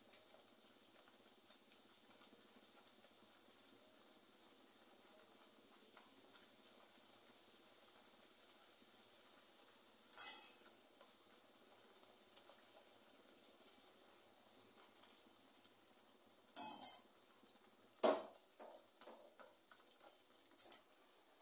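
Puri deep-frying in hot oil in a metal kadai: a faint, steady sizzle. A metal slotted spoon clinks against the kadai about ten seconds in, then knocks and scrapes against it several times near the end.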